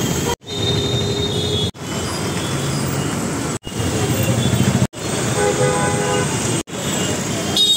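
Busy street traffic noise with a car horn tooting briefly now and then. The sound drops out abruptly five times, a second or two apart, where short recordings are spliced together.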